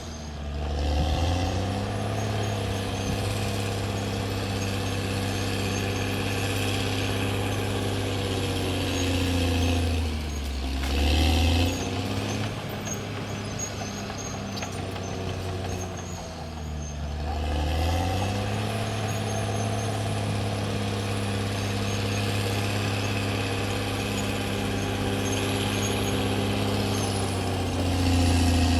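CAT D6R XL bulldozer's diesel engine running steadily at work. Its pitch sags and climbs back again twice, about ten seconds in and again about sixteen seconds in, and it grows briefly louder near the end.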